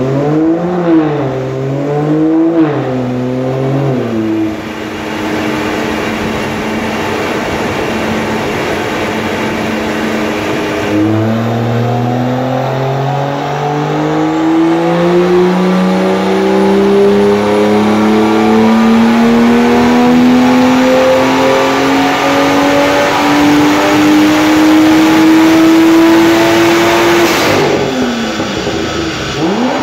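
BMW M2's turbocharged N55 inline-six running on a dyno. It revs up and down a couple of times, holds at steady revs, then from about eleven seconds in makes one long pull with its note rising smoothly for some sixteen seconds before the revs fall away near the end. This is a dyno power run with the boost turned up on the big-turbo conversion.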